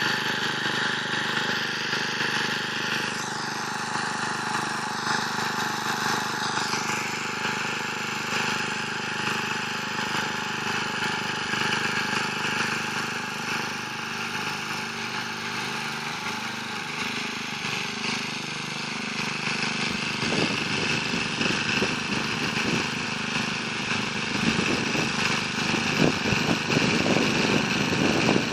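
Luch walk-behind tractor's small engine running steadily while its rotary tiller mills the soil. The sound grows louder and rougher over the last several seconds.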